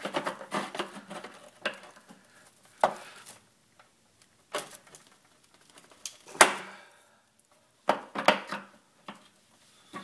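Large tongue-and-groove pliers clicking and knocking against the hex of an electric water heater's failed lower heating element as it is loosened from the tank: a string of separate metal knocks and clicks with short pauses, the loudest about six and a half seconds in.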